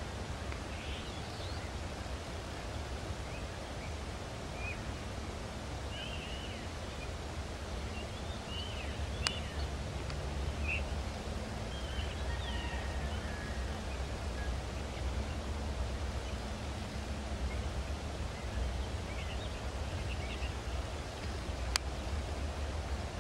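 Outdoor ambience: birds chirping now and then over a steady low rumble that grows slightly louder about halfway through, with two sharp clicks, one near the middle and one near the end.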